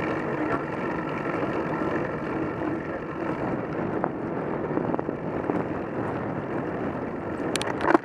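Steady rushing wind and tyre noise from a road bike rolling along, picked up by a camera mounted on its handlebars. A few sharp clicks come just before the end.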